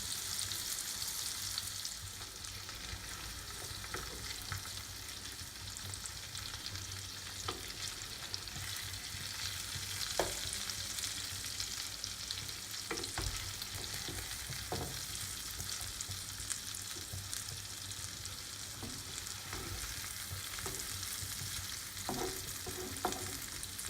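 Oil sizzling steadily around masala-coated sankara fish shallow-frying on a tawa over a low flame, with scattered pops and crackles.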